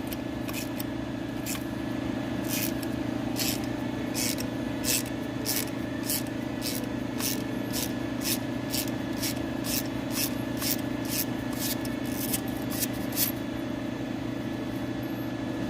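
Ratchet wrench clicking in quick repeated strokes, about two to three a second, as the broken exhaust manifold stud, built up with weld, is backed out. A steady low mechanical hum runs underneath.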